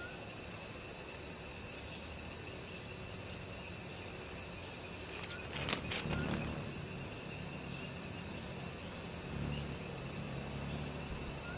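Chorus of night insects singing steadily in a high pitch, with one sharp click a little past halfway.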